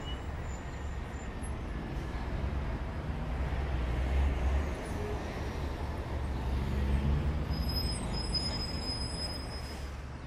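Steady low rumbling background noise, swelling about four seconds in and again about seven seconds in, with faint high thin tones near the end.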